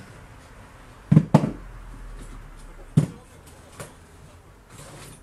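A few sharp knocks of hard objects set down or picked up on a wooden work table: two close together about a second in, another about two seconds later, and a fainter one after that.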